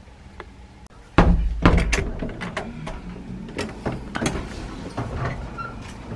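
Hotel room door being unlatched and opened: a loud thud a little over a second in, then a run of sharp clicks and knocks from the handle and latch.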